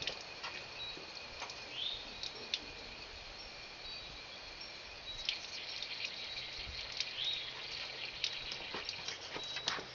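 Water leaking from a faulty outdoor sillcock that will not shut off, a steady faint hiss and drip, with scattered light clicks.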